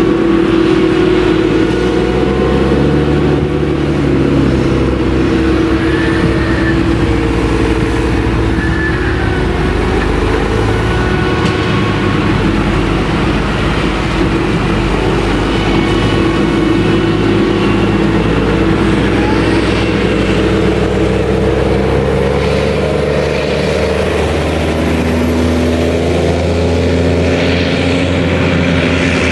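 Claas Jaguar 970 forage harvester chopping maize and blowing it into a trailer, with Case IH tractors running alongside: a steady, mixed drone of heavy engines whose pitch shifts a little as the machines work.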